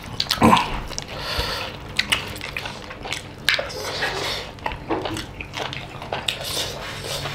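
Eating by hand from steel plates: fingers scraping and tapping on the plates, with chewing and many small wet clicks of curry and rice.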